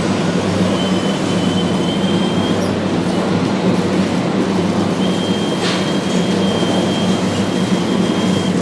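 Radio-controlled model trucks running steadily, their motors and gears giving a hum with a high whine that comes and goes, and a single click about halfway through.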